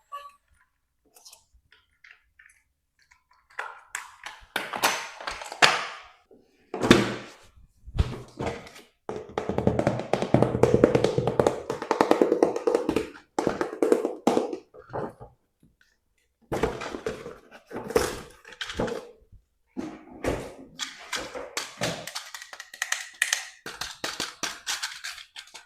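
Plastic action figures and their packaging being handled during an unboxing: irregular taps and knocks, with stretches of scraping and rustling.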